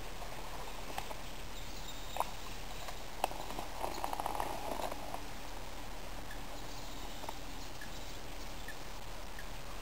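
Fixed-spool fishing reel on a feeder rod: a sharp click about two seconds in and another a second later, then about a second of quick clicking as the reel is wound, tightening the line to the cast feeder. A steady hiss lies under it.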